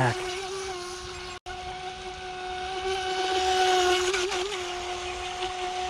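Electric motor of a 3S RC speedboat running at full throttle: a steady high whine, with the hiss of the hull's spray swelling and fading around the middle. The sound cuts out for an instant about a second and a half in.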